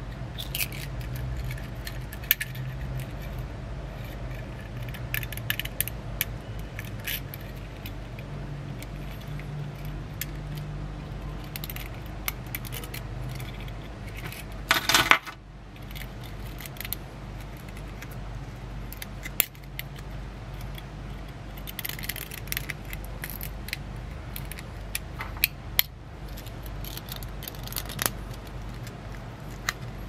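Small metal clicks, taps and scrapes of a Zippo lighter insert and an aluminum fuel canister being handled, with one louder, half-second rasping burst about halfway through. A low steady hum runs underneath.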